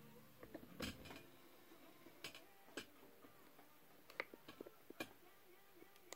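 Near silence broken by scattered light clicks and taps, irregular and unevenly spaced: handling noise at a workbench.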